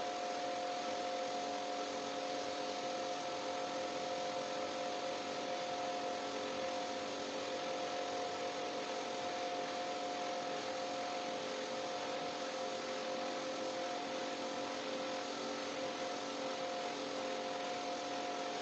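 Steady machine-like hum with a hiss and a few constant whining tones, unchanging throughout.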